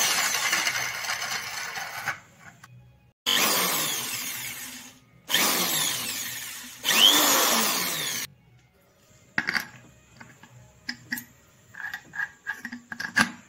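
Electric drill with a right-angle head and an abrasive cutting disc in its chuck, run in four short bursts, each starting loud and then fading. After that, scattered clicks and knocks as the disc and chuck are handled.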